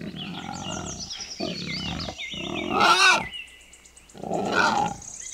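A wild pig grunting in about four rough calls, the third the loudest, with birds chirping in the background.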